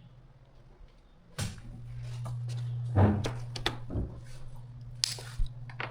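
Metal instrument cover and screws being handled during reassembly: scattered knocks and clatters, the loudest about three seconds in, over a steady low hum.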